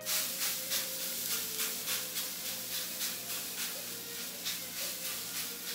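Hand-pump spray bottle squirting water over baguette dough in a hot oven in quick, even pumps, about three a second, with a hiss between them.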